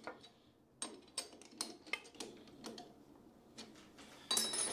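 Light metallic clicks and taps as a T-handle key is worked in a three-jaw lathe chuck that is stuck tight on the spindle nose, then a louder ringing metal clank near the end.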